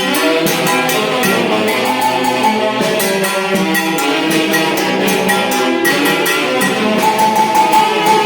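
Tunantada, a Peruvian folk dance tune, played by a band with a lively melody over a steady percussion beat.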